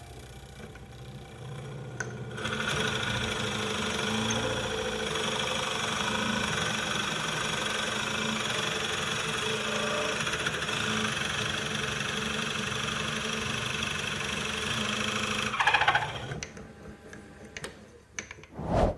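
Turncrafter Tailspinner mini lathe running while a Forstner bit held in the locked tailstock bores a recess for the chuck into the spinning wooden bowl. The cutting noise starts about two and a half seconds in and holds steady over the motor hum, then ends near sixteen seconds with a brief louder burst, leaving the lathe running more quietly.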